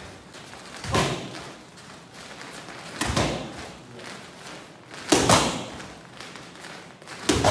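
Low kicks and punches landing on handheld kick pads: four sharp thuds about two seconds apart, the third a quick double of two strikes landing almost together, with a short echo of a large room.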